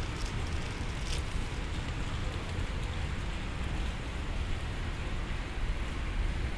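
Steady outdoor background noise: an even hiss over a low rumble, with a few faint clicks about a second in.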